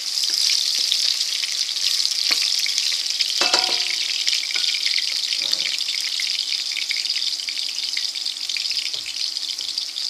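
Sliced onion and garlic sizzling steadily in hot olive oil in a stainless steel pot, with a few knocks as it is stirred in the first four seconds.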